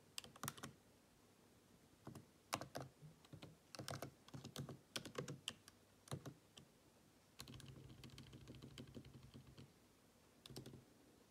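Faint keystrokes on a computer keyboard, typed in short irregular bursts as a terminal command is entered.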